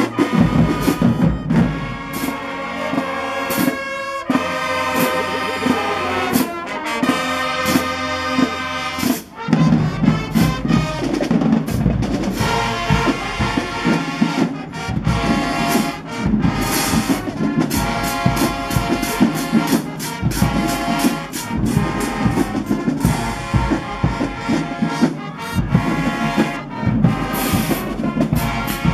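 Marching band brass section, sousaphones included, playing held chords. About ten seconds in, drums and crash cymbals join with a steady driving beat under the horns.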